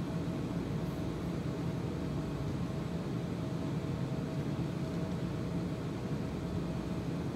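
Steady low mechanical hum of an idling vehicle, with a faint steady whine above it.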